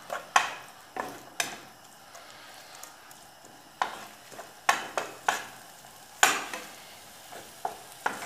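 Wooden spoon stirring chopped onion and tomato frying in oil in a frying pan: a steady sizzle with sharp knocks of the spoon against the pan, about one every half second to second, and a quieter stretch of plain sizzle about two to four seconds in.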